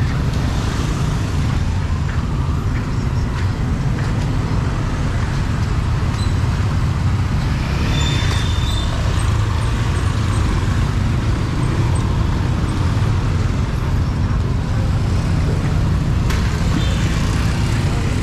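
Street traffic ambience: a steady low rumble of passing vehicles, with a brief high tone about halfway through.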